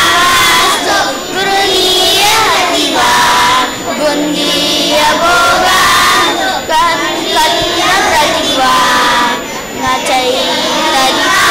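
A group of young children chanting Sanskrit shlokas in unison, in phrases with short breaks between lines.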